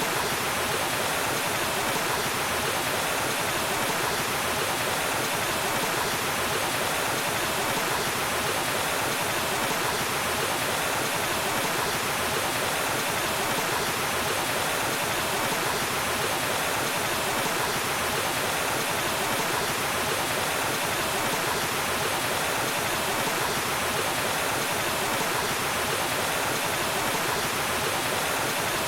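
Waterfall: water falling and rushing in a steady, unbroken roar.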